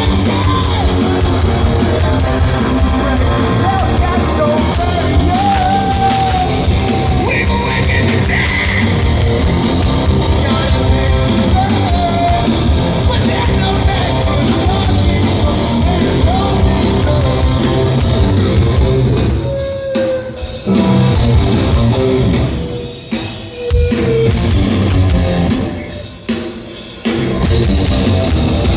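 Live band performance: loud electric guitars, bass and drum kit with a sung vocal line. In the last third the band stops short three times, a second or so each, before crashing back in.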